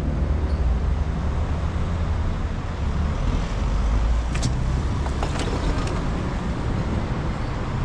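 Road traffic on a city street: a steady low rumble of passing cars and vans, with a few short clicks partway through.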